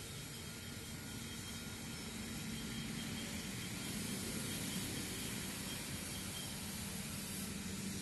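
Steady outdoor background hiss with a faint low hum.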